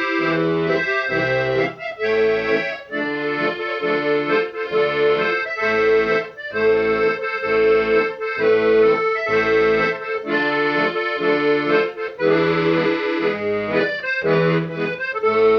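Instrumental music with a steady, bouncing bass rhythm under a sustained melody.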